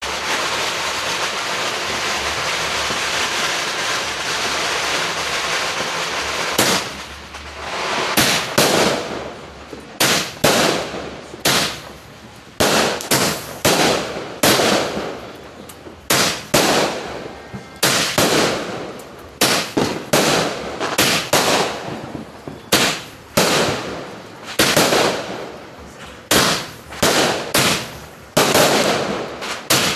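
Pyro King 'Buck Fever' 25-shot firework cake firing: after about six seconds of steady hiss, shots go off one after another, roughly one or two a second, each a sharp bang that fades out quickly.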